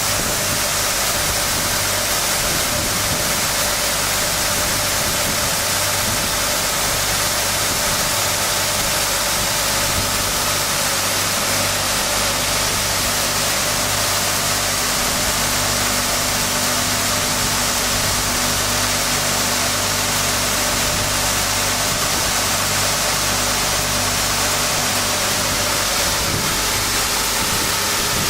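Automatic profile-sanding machine running steadily as it sands a wooden core board: an even, bright hiss over a steady low hum.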